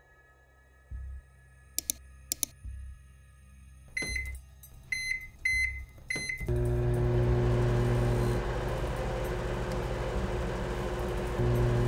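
Two sharp clicks, then four short beeps from a microwave oven's keypad as its buttons are pressed. About six and a half seconds in, the microwave starts running with a steady hum.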